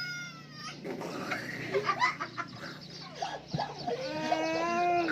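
A person's silly vocal sound effects: a short falling squeal at the start, then from near the end a drawn-out whining wail that rises and falls, with scattered voices in between.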